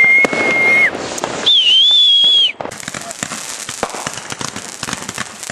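A man whistles two loud notes, first a long steady one and then a higher, wavering one. About two and a half seconds in, fireworks start crackling, a dense run of rapid small pops.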